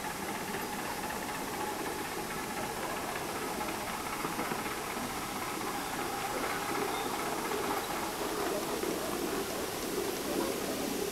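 A 7¼-inch gauge miniature steam locomotive running along the track, a steady steam sound that grows a little louder in the second half as it draws closer.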